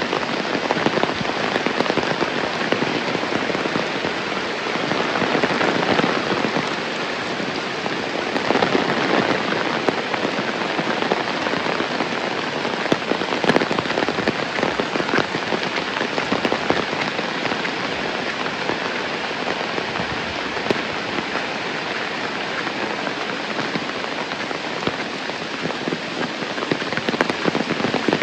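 Heavy rain falling steadily: a dense, even hiss made up of countless small drop impacts.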